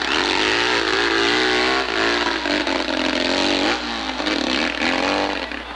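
Hillclimb dirt bike's engine revving hard as it climbs a steep dirt slope, its pitch rising and falling as the throttle is worked and the rear wheel digs for grip.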